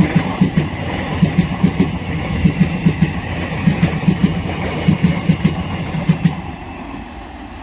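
Passing express train: the wheels of ICF passenger coaches clatter over the rail joints in a steady run of paired thuds over a rumble. The clatter stops about six seconds in and the rumble fades as the train recedes.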